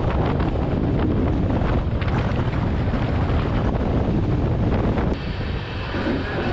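Wind buffeting the microphone over the rumble of a fast-running passenger train, heard from the open door of a moving coach. About five seconds in the sound drops as the microphone is brought back inside the doorway.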